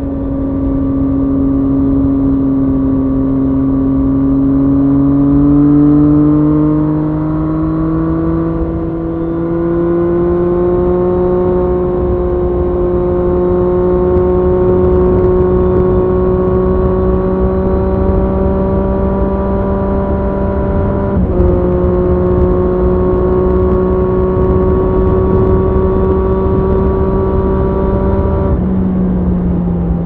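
Triumph Street Triple S inline three-cylinder engine through an SC Project SC1-R slip-on exhaust with its dB-killer fitted, heard on the move. The engine note climbs gently over the first ten seconds or so, then holds steady, with a brief dip a little past two-thirds through and a drop in pitch near the end.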